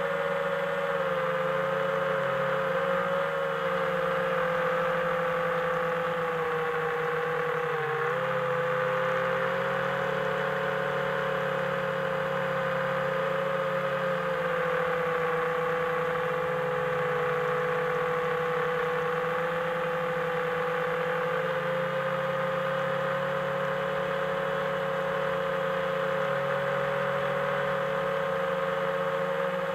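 Homebuilt FPV quadcopter's T-Motor Velox 2306 2400 kV brushless motors and propellers whining steadily in flight. The pitch wavers as the throttle changes, with brief dips a couple of seconds in and again around eight seconds.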